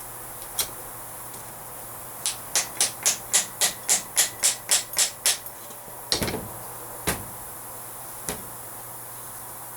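Hammer striking metal on a truck axle's U-joint parts: one tap, then a quick run of about a dozen even taps, about four a second, then three slower single blows. It is typical of driving U-joint bearing caps into a yoke by hand rather than pressing them in a vise.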